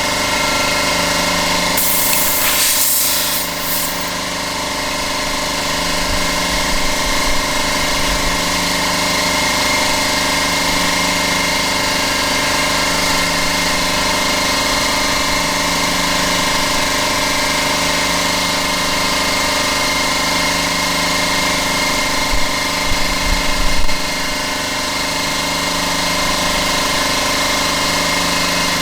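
Air compressor running steadily while a freshly plugged tyre is inflated, with a short hiss of air about two seconds in and a few low thumps later on.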